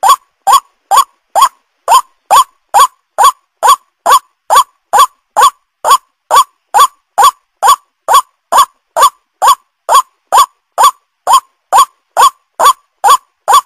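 White-breasted waterhen (ruak-ruak) call used as a bird lure: a short note rising to a peak, repeated at a steady, even pace of a little over two calls a second.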